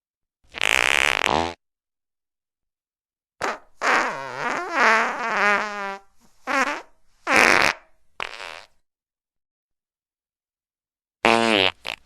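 A run of separate fart sound effects with dead silence between them. There is a one-second fart, then a long wavering one of about two seconds, then three short blasts, and a quick double near the end.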